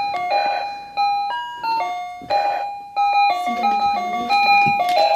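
Battery-powered toy horse playing a simple electronic tune through its small speaker: a run of plain beeping notes, each held a fraction of a second, stepping up and down in pitch.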